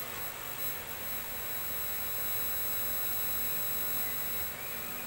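A powered-on CRT television chassis with its back off, giving a steady high-pitched whine over a faint hiss and low hum.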